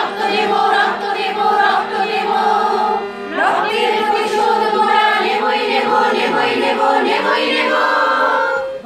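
A group of women singing a Bengali song together, accompanied by a harmonium holding steady notes under the voices, with a short break between phrases about three seconds in.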